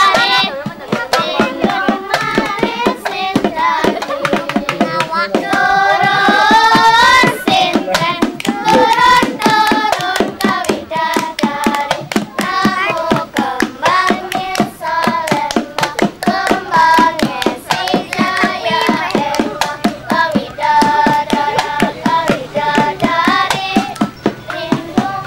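Voices singing a song in unison with continual sharp hand claps or percussion strokes keeping time.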